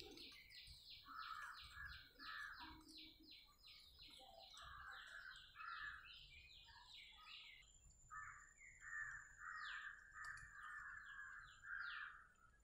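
Faint birdsong: a small bird repeating a short high chirp about four times a second for around seven seconds, while crows caw on and off, most often in the second half.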